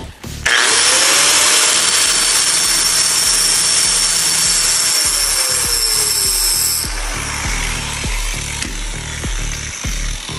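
Angle grinder spinning up about half a second in, then grinding a tungsten electrode held in a TriSharp sharpener against its disc with a loud, steady grinding hiss. About seven seconds in the grinder is switched off and its motor winds down. Background music with a steady beat plays underneath.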